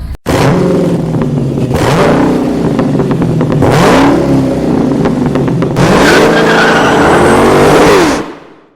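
Car engine revving, its pitch rising and falling twice, then fading out quickly near the end.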